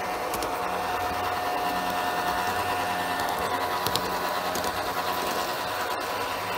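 1:32 scale Burlington Zephyr model train running steadily along the track, its electric motor and gearing giving a continuous whirring whine, with a few sharp clicks from the wheels on the rails.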